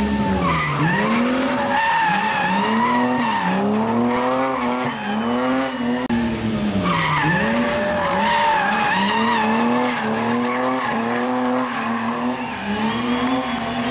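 Race car engine revving hard in repeated rising and falling surges, roughly once a second, as the car is thrown through tight slalom turns, with tyres squealing and skidding on the tarmac.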